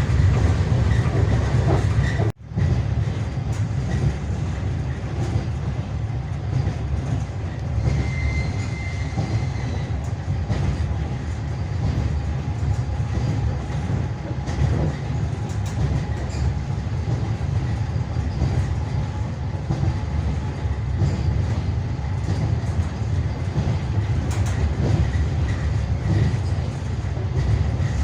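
Passenger railway carriage in motion, heard from on board: a steady rumble of wheels on rails with the clickety-clack of wheels over rail joints. The sound drops out for an instant about two and a half seconds in.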